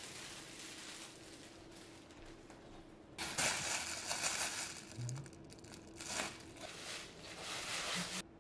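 Thin clear plastic bag crinkling and rustling as it is handled and pressed against the floor. It comes in several loud bouts from about three seconds in and cuts off abruptly near the end.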